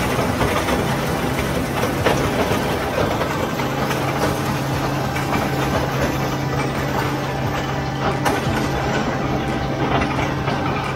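Case IH 2144 combine harvesting soybeans: the machine runs steadily under a dense clatter from the 1020 bean head's turning reel, cutter bar and auger taking in the crop. A steady low hum comes in about a second in.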